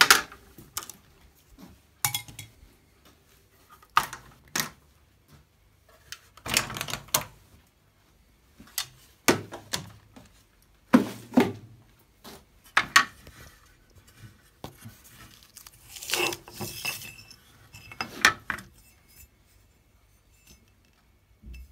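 Clamps being undone and aluminium plate and offcuts handled on the bench: an irregular string of sharp metallic clicks, clinks and clatters, some in short rattling clusters, with the router switched off.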